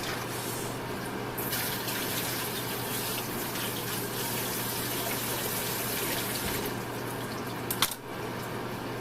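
Kitchen tap running into a sink. It starts about a second and a half in and stops near the end with a couple of sharp clicks.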